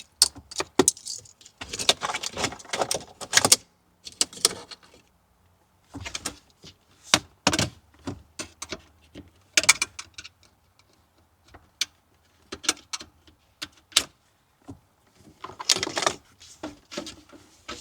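Irregular sharp plastic clicks and rattles of car wiring-harness connectors and their clips being pushed, unlatched and pulled free, with short quiet pauses between bursts of handling.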